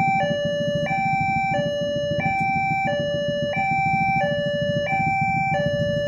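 Indonesian railroad level-crossing warning alarm sounding a two-tone electronic signal, its high and low tones alternating about every two-thirds of a second. Idling motorcycle engines run underneath it at the closed crossing.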